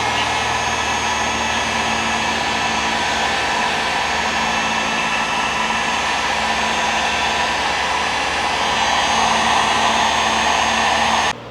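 Heat gun blowing steadily while shrinking a fabric automotive heat-shrink sleeve onto wiring; it cuts off suddenly near the end.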